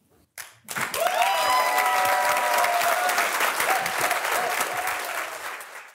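Audience applause breaks out about a second in, dense clapping with some voices cheering over it, then tapers off near the end.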